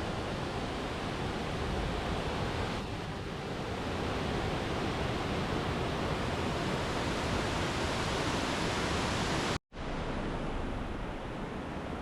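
Waterfall rushing, a steady dense roar of falling water, cut by a sudden split-second gap of silence near the end.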